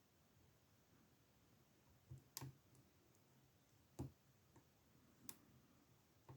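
Faint, scattered clicks of a lock pick working the pin stack of an old Ruko padlock under tension, about five over a few seconds, the loudest a little past two seconds in and at four seconds.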